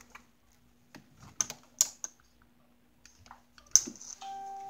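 A few sharp clicks and taps, then near the end a steady electronic tone begins, over a faint constant low hum.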